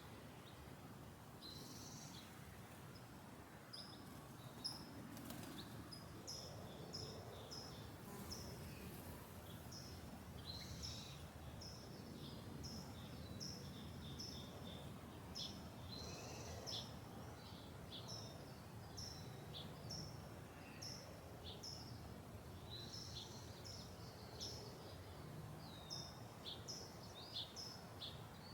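Several small songbirds chirping and singing in short, rapidly repeated high notes, over a faint, steady low rumble of suburban background noise.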